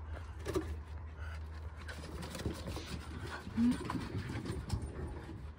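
Dogs play-fighting on a wooden deck: claws and paws clattering on the boards in quick irregular clicks, with a short low grunt from one of the dogs a little over halfway through.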